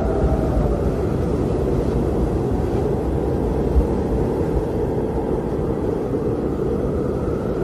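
Steady roar of a jet airliner's cabin in cruise flight: engine and airflow noise, deep and even, with a faint steady hum in the middle range at the start.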